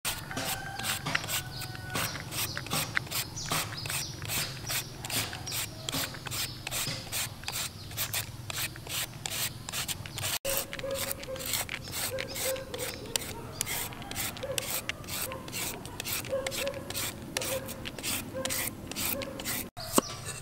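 A julienne peeler is scraped down a block of peeled white vegetable, shredding it into thin strips. The rasping strokes come evenly, about two or three a second.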